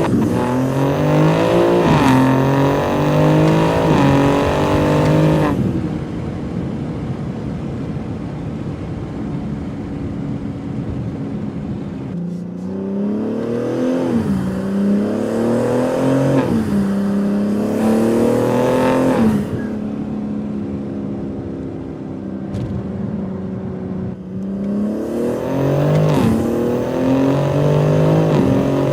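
BMW G80 M3's twin-turbo inline-six, through a Fi EXHAUST valvetronic catback, accelerating hard three times. Each time the pitch climbs and then drops sharply at every upshift, and between the pulls the engine runs steadier and quieter.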